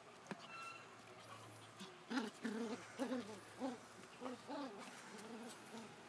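Puppies making play noises: a quick run of about eight short, low-pitched vocal sounds over two and a half seconds, starting about two seconds in.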